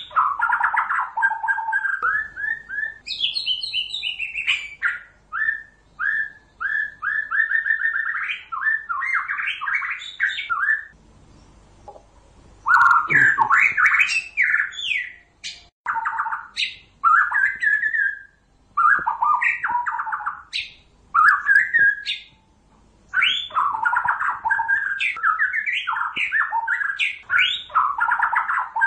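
White-rumped shama song, a lure recording for trapping: quick, varied phrases of rapid repeated notes and trills, with harsher squawky notes mixed in. The song is broken by several short pauses, the longest about halfway through.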